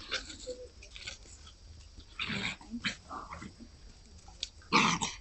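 Nine-and-a-half-week-old puppies play-fighting with short growls and barks. The two loudest outbursts come about two seconds in and near the end.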